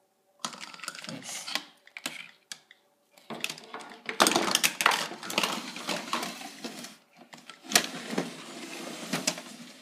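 Plastic toy dollhouse furniture and dolls being handled and moved about on a wooden floor: irregular clattering, clicking and rubbing in clusters, with a sharper click near the end.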